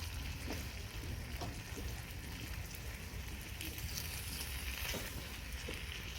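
Campfire burning: a steady hiss with scattered small pops and crackles over a low rumble.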